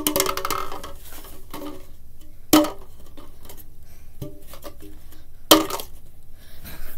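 Red plastic party cups being flipped and knocking down onto the floor and the cup stack: three sharp plastic knocks, about two and a half seconds apart, each with a short ringing after it.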